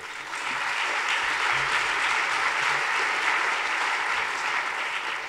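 Audience applauding: many people clapping together, building up quickly after the first moment, holding steady, and beginning to die away near the end.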